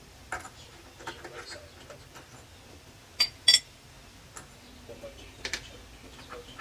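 Scattered metallic clicks and taps of tools and bolts on hood-hinge hardware, with two sharp ringing clinks about three seconds in.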